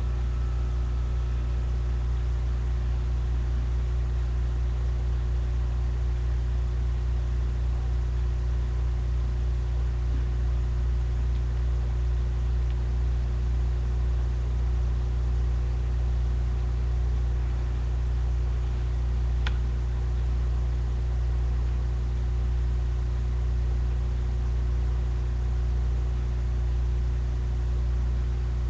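Steady low mechanical hum, even in level throughout, with a single short click about two-thirds of the way through.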